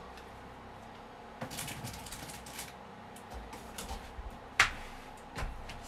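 Cardboard box and packaging being handled during an unboxing: rustling and scraping about a second and a half in, then scattered sharp clicks, the loudest a little before the end.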